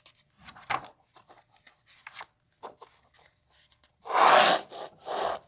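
Comic books and their packaging being handled: light rustling and small clicks, then a loud short burst of rustling noise about four seconds in and a second, shorter one about a second later.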